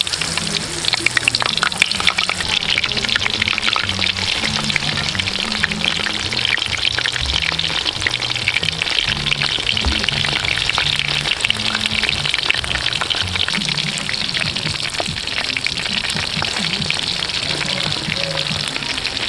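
Battered mushrooms deep-frying in hot oil in a wok: a dense, steady crackle and sizzle of many tiny pops. Background music with a low melody runs underneath.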